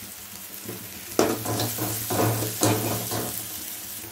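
Chopped onions frying in oil in an aluminium kadai, with a spatula scraping and stirring them in several quick strokes from about a second in.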